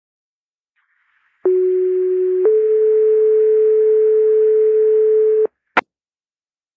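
Fire dispatch radio two-tone sequential page: a steady lower tone for about a second, then a slightly higher tone held for about three seconds, over faint radio hiss, followed by a short click. This is the alert that sets off the volunteer firefighters' pagers before the dispatcher reads out the call.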